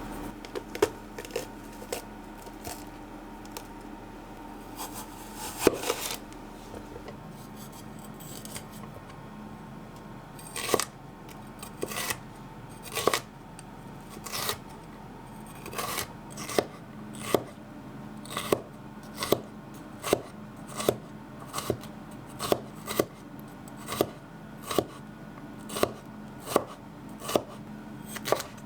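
Repeated sharp knocks, irregular at first, then settling into a steady beat of a little more than one a second from about halfway through, over a faint steady hum.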